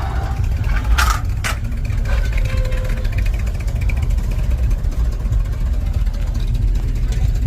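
Car engine running with a steady low rumble, with two sharp clicks or knocks about a second in, half a second apart.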